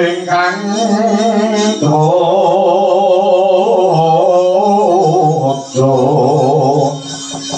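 Javanese wayang kulit music: long, wavering sung phrases in a chant-like style over gamelan accompaniment, with brief breaks about two seconds in and again near six seconds.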